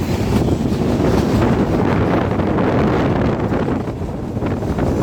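Passenger train running at full speed: a steady rumble of the moving train, with wind buffeting the microphone.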